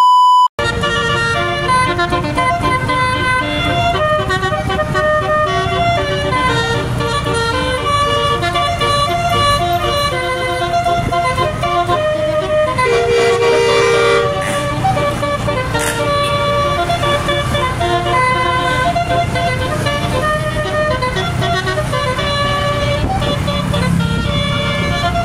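Twelve-note telolet horn on a tour bus playing a melody, note after note in quick stepping pitches, over the low running of the bus's engine. A short steady beep sounds at the very start.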